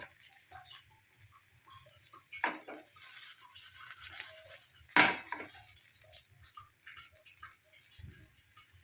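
Kitchen utensils and dishes clattering during food preparation: two sharp clinks about two and a half and five seconds in, the second the loudest, with lighter ticks and knocks between.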